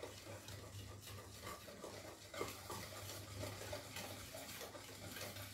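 Wire whisk beating eggs into creamed butter and sugar in a mixing bowl: quick, faint, irregular ticking and scraping of the wires against the bowl, over a steady low hum.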